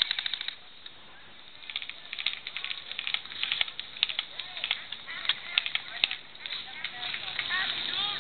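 Airsoft guns firing: a rapid burst of shots right at the start, then a pause, then a long run of irregular single shots from several guns.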